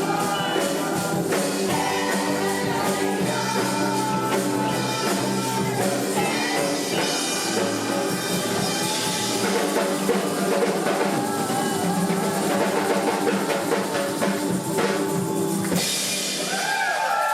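Music played by a band with a drum kit and tambourine, with some singing. Near the end the music stops and applause begins.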